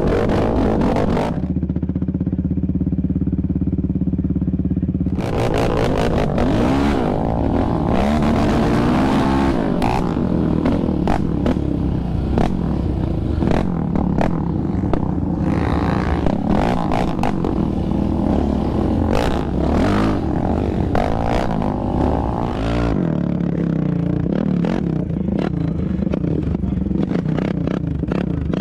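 Yamaha Raptor 700R's single-cylinder engine heard from the rider's seat, running low and steady for a few seconds, then revving up and down over rough dirt trail, with clattering knocks from the quad and the ground. Near the end the sound changes to another ATV engine heard from beside the trail.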